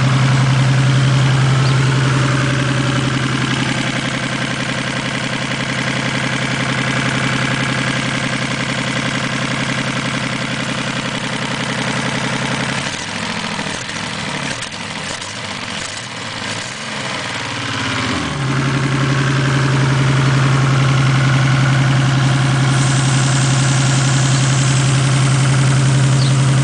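1987 Toyota Supra Turbo's 7M-GTE turbocharged inline-six idling with a steady low drone. About halfway through, for some five seconds, it runs rough and uneven, then settles back to a steady idle; the engine has a misfire.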